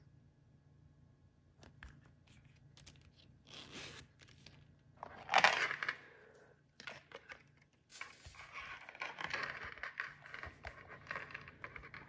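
Hands handling a coated-canvas handbag and its zippered pouch: scattered rubbing and scraping, a short loud scrape about five seconds in, then steady rustling of the canvas under the hands.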